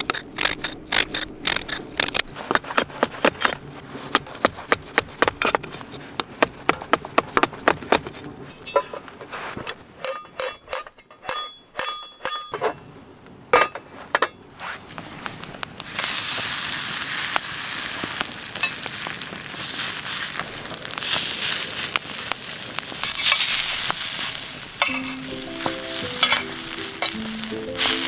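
A hatchet's head knocking repeatedly on a wooden handle, quick sharp taps for about the first eight seconds, then a few ringing clinks of a steel pan. From about sixteen seconds on, leftover jeon sizzle steadily as they fry in the square steel pan over the campfire, and background music comes in near the end.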